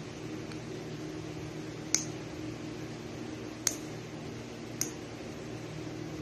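Nail clipper snapping shut three times, a second or two apart, as fingernails are trimmed. A steady fan hum runs underneath.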